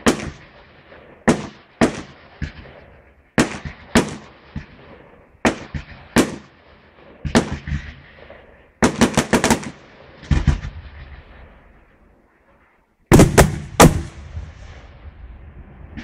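Aerial fireworks shells bursting in sharp bangs, often in pairs about a second apart, each trailing off in a rumbling echo. A quick volley of bangs comes about nine seconds in, and after a brief hush a loud cluster of bangs near the end.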